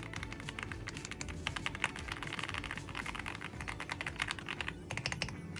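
Rapid typing on an Aula F75 gasket-mount mechanical keyboard, a quick, dense run of keystroke clicks. There is a brief pause near the end, then the typing resumes.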